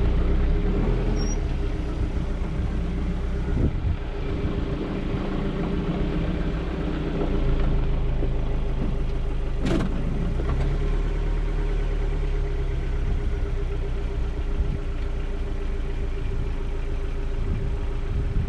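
Small four-cylinder off-road engine, that of a 1986 Suzuki Samurai, idling steadily close by with a constant low hum. There is one sharp click about halfway through.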